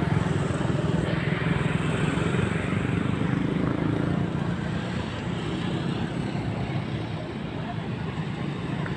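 Motor vehicle engine running steadily with road and traffic noise, a low hum that eases off slightly in the second half.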